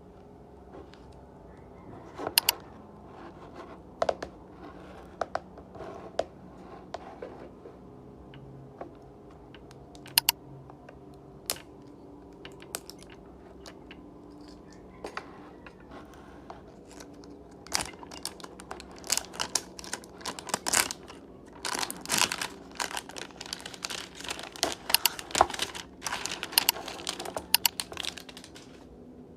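Close-up handling of items and their plastic packaging: scattered sharp clicks and taps, then from about two-thirds of the way in a dense stretch of crinkling and rustling.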